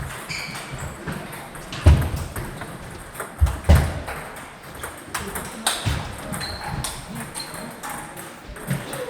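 Table tennis balls clicking in quick irregular strikes off paddles and the table in a large echoing hall, with a few heavier thumps about two and three and a half seconds in.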